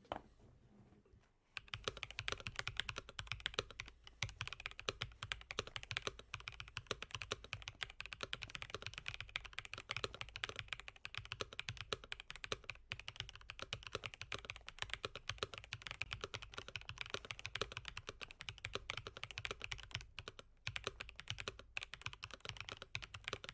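Typing on an Epomaker EK-68 hot-swappable mechanical keyboard with Flamingo switches: a fast, uneven run of keystroke clicks that starts about a second and a half in.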